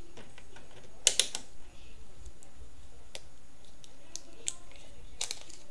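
Scattered sharp clicks and light clatter of small objects being handled by hand, with a tight cluster of clicks about a second in and another near the end.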